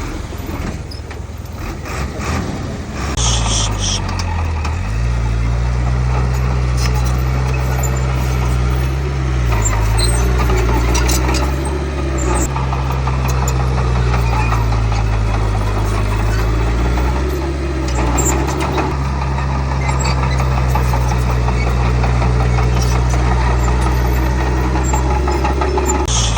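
Heavy diesel engine of earthmoving machinery working under load, louder from about three seconds in, its pitch dipping and rising as the load changes. Brief high-pitched metallic squeaks come about three seconds in and near the end.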